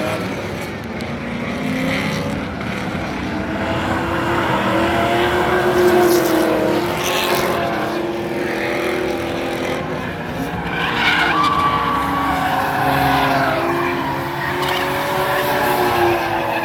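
Drift cars sliding past with engines held at high revs, changing pitch, and tires screeching, loudest in surges about six and eleven seconds in.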